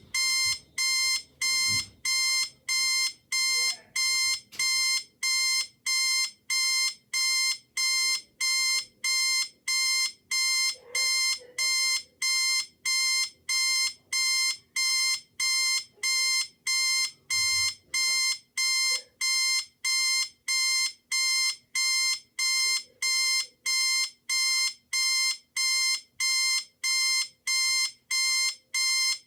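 Electronic alarm beeping steadily: one high, unchanging tone repeated evenly, about three beeps every two seconds.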